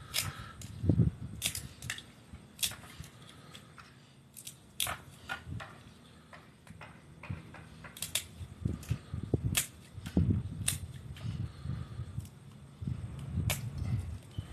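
Blue crab shells cracking and snapping as the raw crabs are cleaned with a knife: irregular sharp clicks and cracks, with a few duller knocks.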